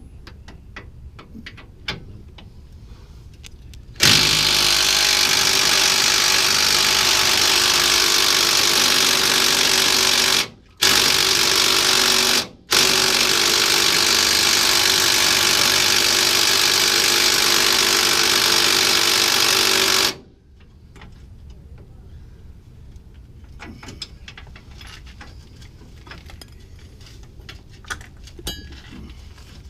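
A power tool run hard in three trigger pulls, about six, two and seven seconds long, with brief releases between, while bolts are being loosened on the upper control arms. Light clinks of hand tools before and after.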